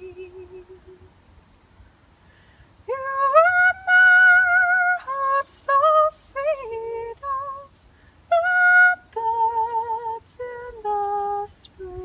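A woman singing long held notes with vibrato, gliding up into each one, starting about three seconds in after a near-quiet pause.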